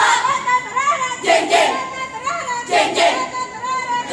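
A group of young scouts singing a yel-yel cheer together, the tune sliding up and down, twice broken by short loud bursts about a second and a half apart.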